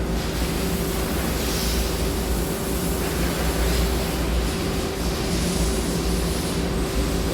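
Powered-up Nakamura-Tome AS-200Y CNC turning center running steadily: a constant hum with a steady tone, and a whirring hiss that comes up right at the start.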